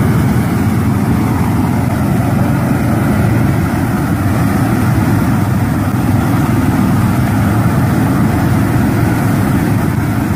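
Tractor engine running steadily as it pulls a flame weeder, mixed with the rush of the weeder's row of gas burners: a constant low noise with no breaks.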